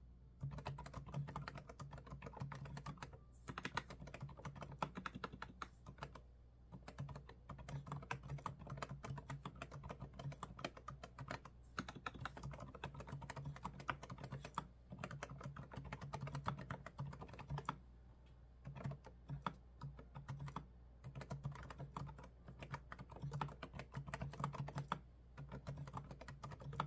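Fast typing on a computer keyboard: rapid runs of key clicks broken by short pauses every few seconds.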